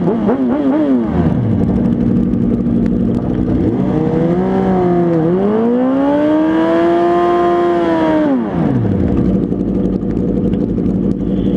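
A vehicle engine idling at a stop and being revved: a few quick blips in the first second, then, from about four seconds in, a long rev that climbs, holds high for a couple of seconds and falls back to idle.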